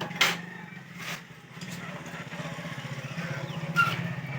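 A small engine idling steadily with an even low pulsing hum, with a few sharp clicks, the loudest near the end.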